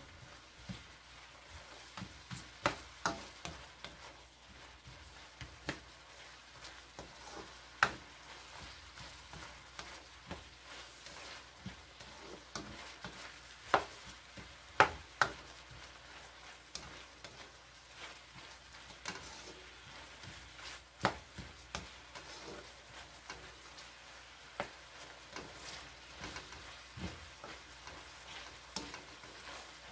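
Sliced onions frying in a metal wok, stirred with a spatula: a faint sizzle under irregular sharp clicks and scrapes of the spatula against the wok.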